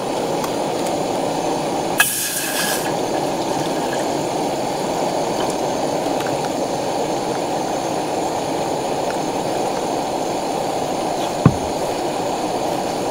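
Remote-canister gas camping stove burning under a pot of water, with a steady, even burner noise. There is a short hiss about two seconds in and a single knock near the end.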